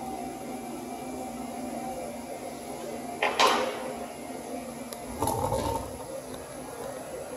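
Steady background hum in a workshop. A short scraping rustle comes a little over three seconds in, and a knock with a brief ringing tone just after five seconds.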